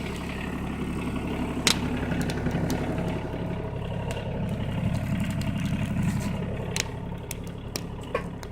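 Tractor engine running, getting louder through the middle and easing off near the end, with a few sharp clanks over it.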